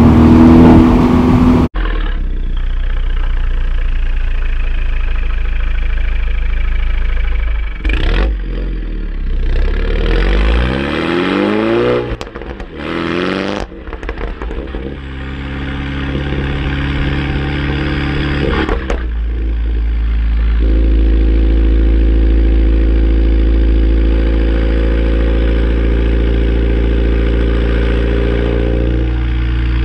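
Mini John Cooper Works turbocharged four-cylinder heard at its tailpipes through a sports catalytic converter and JCW Pro exhaust, loud. The engine revs up and down with rising and falling pitch between about a quarter and half of the way in, then settles into a steady drone.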